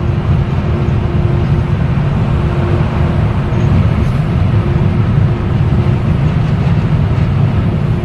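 A vehicle driving in traffic: a steady low road and engine rumble, with a faint tone that comes and goes.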